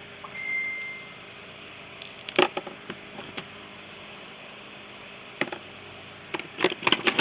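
Small metal tools and parts clinking and clattering as they are rummaged through in a small toolbox, in scattered bursts of clicks that grow busiest near the end. A brief steady high tone sounds just after the start.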